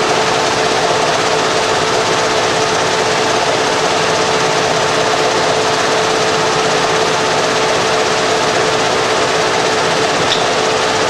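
Automatic industrial sewing unit (GM-550) stitching a straight seam, running steadily with a constant whirring hum.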